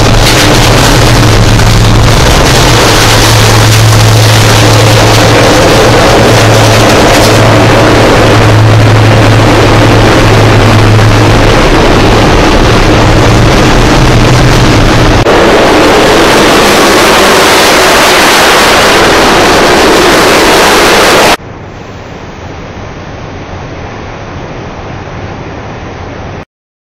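Loud steady rush of wind and road noise inside a coach cab at motorway speed, with the driver's broken side window covered only by a plastic sheet, and a steady low engine drone under it for the first fifteen seconds or so. About 21 seconds in it cuts to a much quieter, duller steady hiss.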